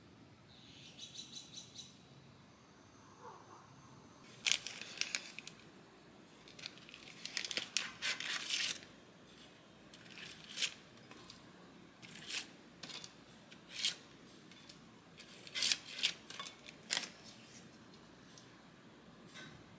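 Crisp crinkling and rustling in short bursts as stiff sheets of leaf gelatine are pulled from their packet and handled, with a short run of faint clicks near the start.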